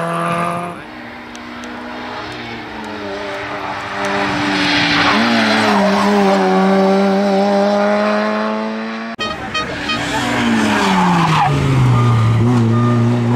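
Peugeot 106 rally car's engine revving hard, its pitch climbing and falling as the car accelerates and slows. About nine seconds in the sound changes abruptly, and then the revs fall steeply, as under braking, before steadying low.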